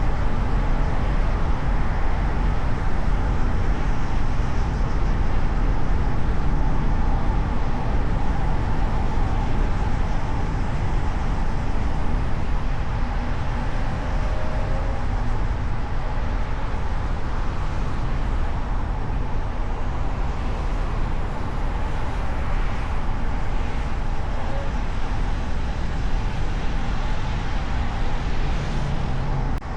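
Car driving through city traffic, heard from a hood-mounted microphone: a steady low rumble of road, engine and wind noise.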